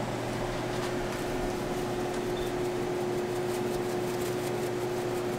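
A fan running with a steady hum and one constant mid-pitched tone.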